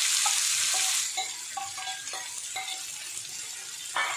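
Freshly added sliced onions sizzling in hot oil with popping mustard seeds in an iron pan. The sizzle is loud for about the first second, then settles to a quieter frying hiss with scattered small crackles. There is one sharp knock near the end.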